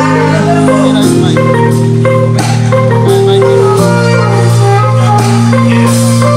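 Instrumental music from a live band at a sound check, with no singing: held low chords that change every second or two under a bright melody line and percussion hits.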